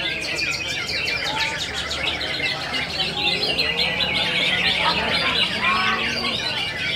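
Many caged green leafbirds (cucak ijo) singing at once: a dense, unbroken mass of rapid overlapping chirps and trills, steady in level.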